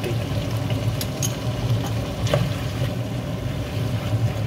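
Pork belly in sauce simmering and sizzling in a frying pan, with a few light clinks and scrapes as shrimp paste is spooned in and stirred with a wooden spatula, over a steady low hum.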